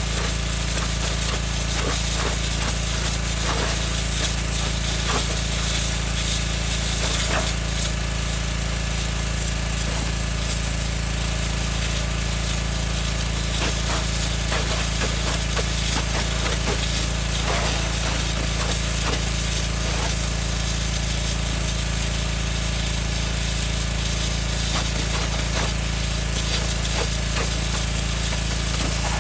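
Engine-driven Northstar 4000 PSI pressure washer running steadily under load, its high-pressure jet blasting soil and cutting into oak stump roots, with a constant spatter of small debris hits.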